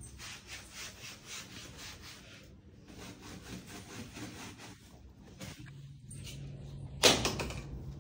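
Rhythmic scrubbing strokes, about four a second, in two runs with a short pause between, then a single loud knock about seven seconds in.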